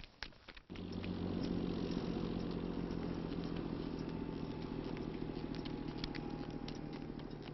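Motor vehicle engine running steadily, cutting in suddenly about a second in and slowly fading.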